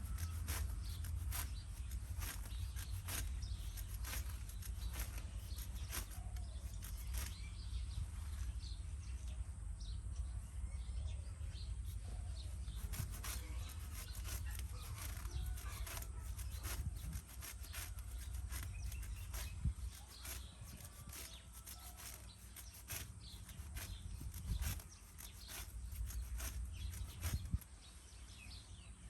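Grass and weeds being cut by hand, a run of short sharp slicing strokes about once or twice a second, over a steady low rumble.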